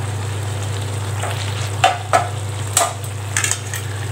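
Slotted spatula stirring thick vegetable curry in a steel pan, knocking and scraping against the pan four or five times from about two seconds in, over a steady low hum.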